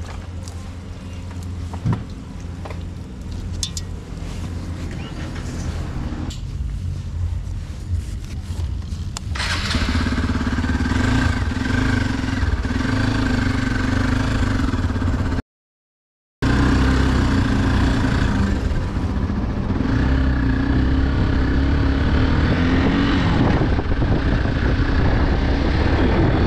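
Hero Xpulse 200 4V motorcycle's single-cylinder engine running at low speed. About nine seconds in it gets much louder as the bike pulls away and rides on, with a brief cut to silence midway.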